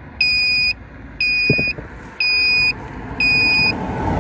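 Viking 3400 peak-amp 12/24 V jump starter's electronic beeper sounding four even, high half-second beeps, about one a second, while it is set to 24 V output.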